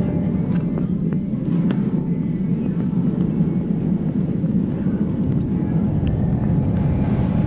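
Shopping cart rolling over a hard store floor: a steady low rumble from the wheels, with a few light rattles and clicks.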